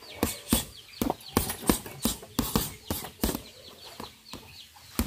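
Boxing gloves punching a hanging heavy bag: a rapid, uneven run of sharp thuds, about three punches a second, thrown in combinations.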